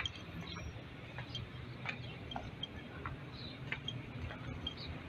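Quiet outdoor ambience: a steady low rumble with scattered faint short chirps and brief clicks.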